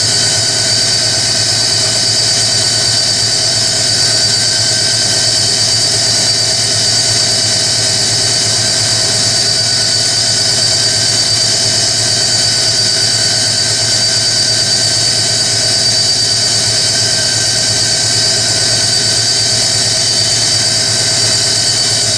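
Hoover Electronic A3172 washing machine spinning at a steady speed, a high steady whine over a lower hum. The machine has a raspy note that the owners think may want a bit of lubrication.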